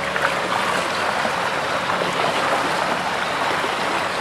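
Water rushing and splashing along the hull of a moving river cruise boat, a steady spattering wash.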